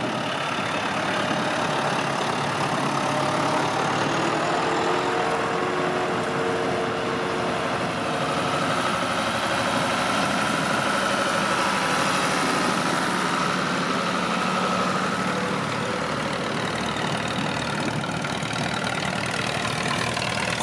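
Several farm tractor engines running as the tractors drive slowly past one after another, with a thin steady whine above them for several seconds mid-way.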